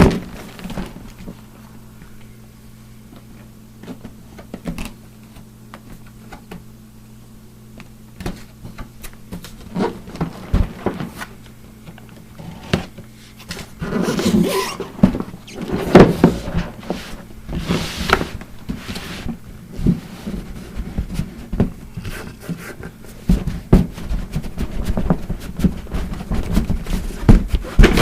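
A box cutter slicing packing tape and cardboard on a kit box, with the flaps and packaging handled open: scattered scrapes, taps and rustles, busiest in the second half, over a steady low hum.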